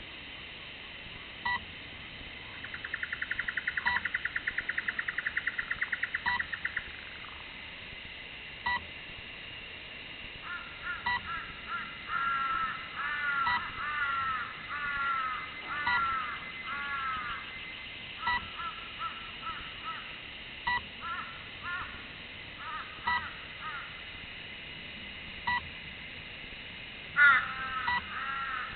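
Birds calling: a fast trill that swells for about four seconds a few seconds in, then a run of descending calls, with the loudest calls coming again near the end. A short beep repeats about every two and a half seconds.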